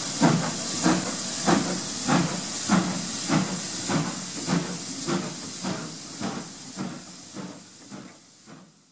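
GWR Hall-class 4-6-0 steam locomotive 6960 'Raveningham Hall' pulling out under steam. Its exhaust beats come evenly, about one and a half a second, over a steady hiss of steam from the open cylinder drain cocks, and fade out near the end.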